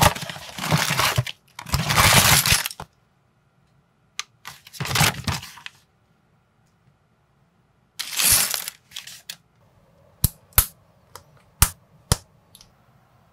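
Cardboard box of a brick-building set being opened and emptied: flaps scraping and paper rustling in several bursts through the first half. In the second half come a few sharp clicks of small plastic minifigure pieces being handled and fitted together.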